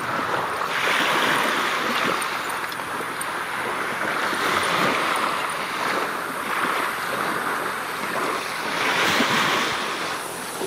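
Surf washing up on the beach, swelling three times, with wind rushing across the microphone.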